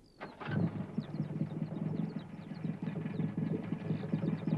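Small delivery van's engine starting about a quarter of a second in, then running at a steady idle with a pulsing chug.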